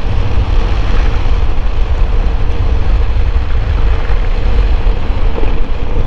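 Wind buffeting the microphone on a moving motorcycle, a steady low rumble, with the Suzuki Bandit's inline-four engine running at a steady cruising speed underneath.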